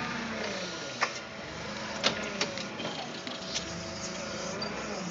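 Forklift motors whining as the load is moved into place, the pitch sliding up and down, with several sharp metal clacks.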